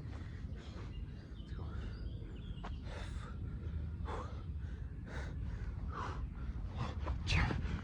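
Heavy, hard breathing of a man doing burpees in a 15 kg weight vest: loud exhales about once a second, the strongest near the end, over a steady low rumble.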